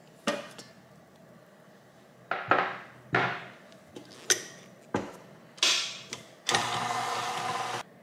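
Kitchen clatter while making bread dough: a string of short knocks and clinks, each fading quickly. Near the end a dough-kneading machine runs for about a second and cuts off suddenly.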